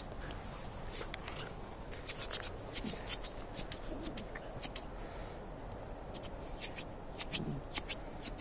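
Footsteps swishing through grass: light rustling with quick runs of soft clicks, bunched about two seconds in and again near the end.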